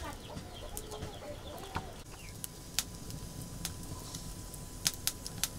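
Chickens clucking faintly in the first couple of seconds, then a scatter of sharp clicks, a few in quick succession near the end.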